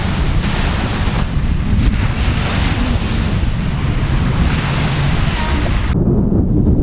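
Small waves breaking and washing up a pebble lakeshore, in surges, with wind buffeting the microphone as a low rumble. About six seconds in the surf cuts off suddenly, leaving only the wind rumble.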